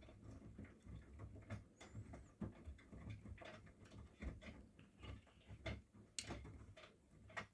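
Miele washing machine running through its wash cycle: a low motor hum with irregular clicks and knocks from the turning drum, cutting out abruptly at the very end.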